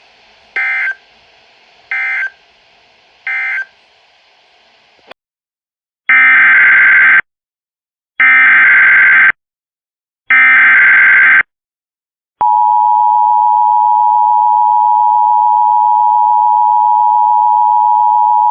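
Emergency Alert System tones: three short warbling SAME data bursts, the end-of-message code closing the tornado warning, then after a short silence three longer, louder SAME header bursts announcing the next alert. About twelve seconds in, the steady two-tone EAS attention signal starts and holds.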